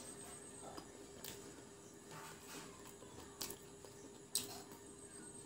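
Chewing fried chicken pakora close to the microphone: soft, wet mouth sounds with a few sharp crisp clicks, the loudest near the end, over a faint steady hum.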